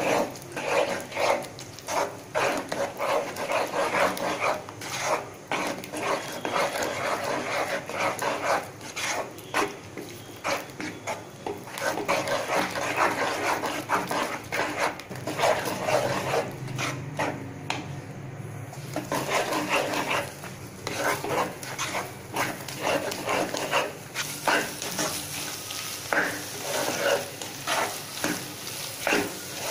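Green spatula stirring and scraping eggs through onion-tomato masala in a nonstick kadai, with frying sizzle; the strokes come in quick succession.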